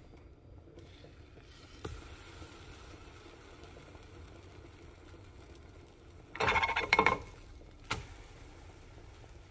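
French toast frying in butter in a nonstick pan, sizzling faintly. About six and a half seconds in comes a short burst of a wooden spatula scraping across the pan under the slice, then a single tap a second later.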